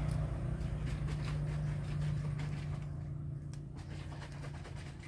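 Domestic cat chewing a freshly caught rat, a scatter of small crunching clicks, over a steady low motor hum that fades gradually.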